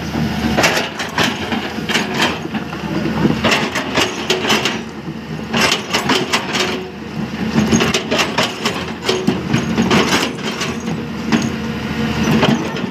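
Hyundai 215 LC excavator bucket digging into broken rock: repeated crunching and clattering of stones against the steel bucket, over the steady hum of the excavator's diesel engine.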